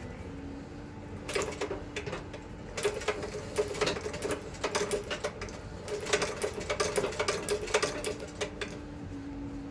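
A ca. 1900 Singer "Patcher" treadle sewing machine stitching in several short runs of rapid clicking, with brief stops between them, as it feeds through thick canvas cuff seams.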